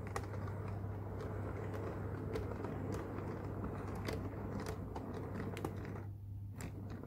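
HO-scale model train of Amtrak Superliner coaches rolling along the track, with irregular clicks from the wheels over rail joints and points and a steady low hum underneath. The rolling noise briefly drops away about six seconds in.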